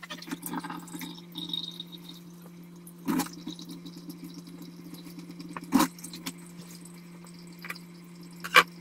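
Kitchen tap running with a steady hum as raw chicken liver is rinsed under it and laid out on paper towels. Three sharp knocks come through it, the loudest near the end.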